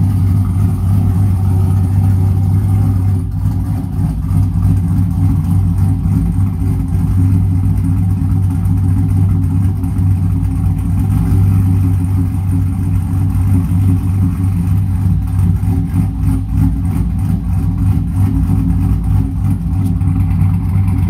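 Lifted GM pickup's LS V8 with a BTR Stage 2 truck cam, active fuel management deleted, long-tube headers and a catless exhaust, idling steadily with a deep exhaust note and a slightly uneven, choppy rhythm.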